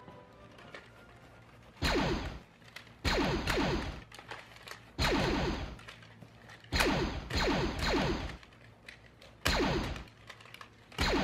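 Lightsaber swing and clash effects: a series of sudden buzzing bursts, each dropping in pitch, about one every two seconds.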